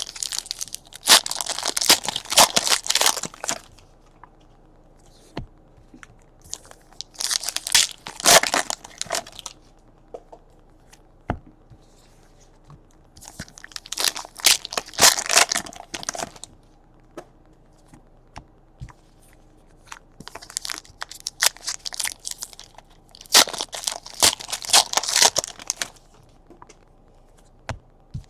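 Wrappers of Panini Optic Fast Break basketball card packaging being torn open and crinkled. It comes in five bursts a few seconds apart, with quiet handling in between.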